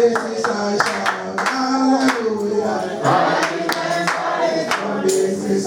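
Congregation singing a praise chorus together with steady hand clapping, about two claps a second.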